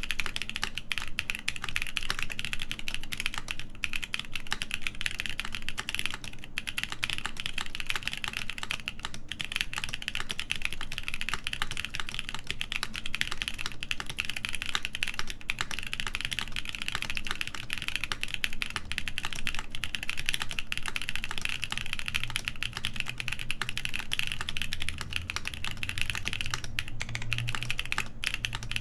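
Continuous fast typing on a Kepler TKL mechanical keyboard with stock, factory-lubed BSUN X switches, a full polycarbonate plate and GMK keycaps: a dense run of keystroke clicks with only a few brief pauses.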